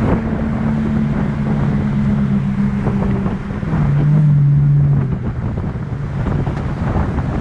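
A car engine drones at a steady speed under heavy wind buffeting on the microphone. About four seconds in, the engine note drops lower and briefly gets louder.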